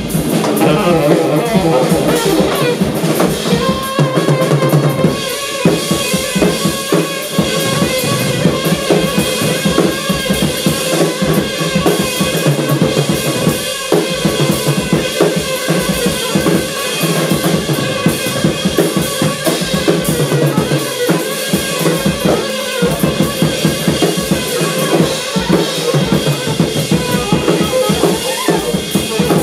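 Live band of saxophone, electric guitar and drum kit playing, with busy drumming under long held saxophone notes.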